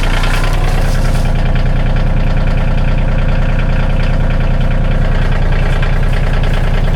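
A vehicle's engine running steadily at a low, even speed, with no revving, as it pulls a chained tree out of a pond.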